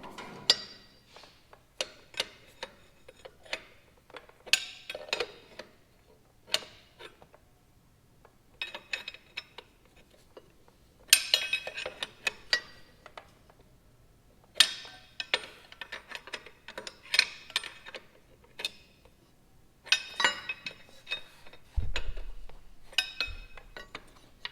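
Metal tools and parts clinking and clanking at irregular intervals, with short ringing clusters and quiet gaps between them, as parts are worked loose by hand. A dull, low thump comes about 22 seconds in.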